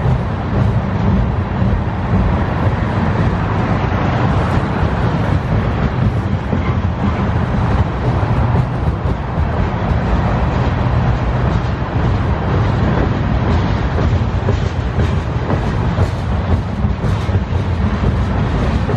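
Freight train cars rolling steadily past: a loud, continuous rumble of wheels on rail, with some wheel clatter near the end.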